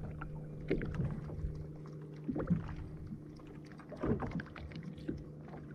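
Water slapping and lapping against the hull of a drifting jet ski in short irregular splashes, over a steady low hum.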